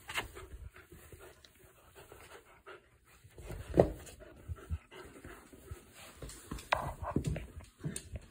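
A dog panting and moving about on a cushion, with scattered short rustles and knocks; the loudest comes about four seconds in.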